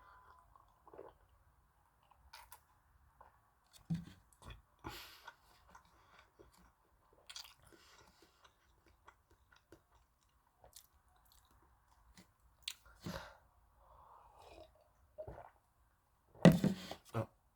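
Close-miked chewing of rosé buldak stir-fried noodles: scattered, irregular eating sounds, with the loudest burst about a second before the end.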